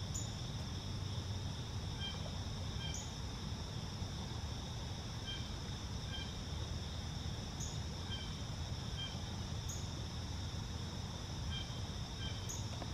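Steady chorus of crickets and other insects, a continuous shrill trill in two high bands. Short two-note calls repeat over it about every three seconds, with a few brief high chirps and a low background rumble.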